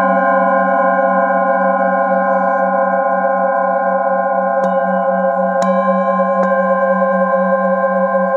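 Metal singing bowl held on the palm and struck with a mallet: a sustained, layered ring whose lowest tone wavers slowly. Past the middle it is struck again three times, just under a second apart, each strike freshening the ring.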